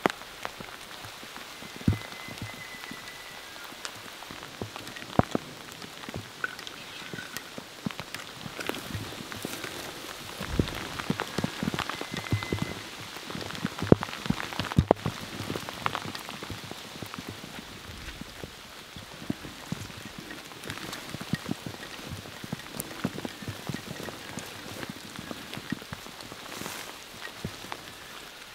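Pouring rain falling steadily, with many separate drops ticking sharply close by.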